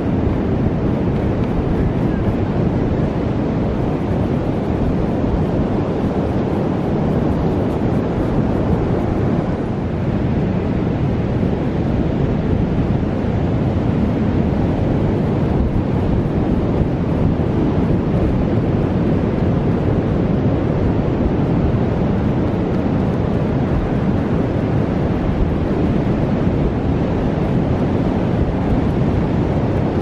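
Strong onshore wind rushing steadily over the microphone, mixed with ocean surf breaking on the beach.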